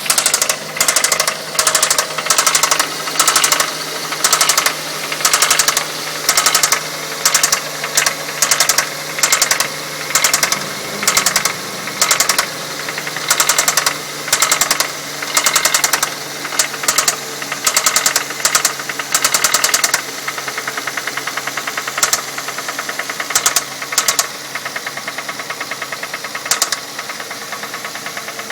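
2006 Ford Fusion's four-cylinder engine running with a loud, rapid clicking knock. The clicks come in bursts a little under twice a second at first, then settle into steadier ticking after about two-thirds of the way in. The owner wonders whether it is a valve problem or the timing belt slapping.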